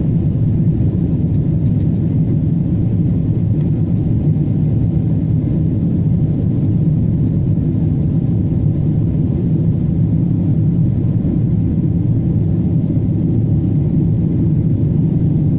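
Boeing 777-200 heard from inside the cabin as it climbs after takeoff: a loud, steady, low rumble of engines and airflow.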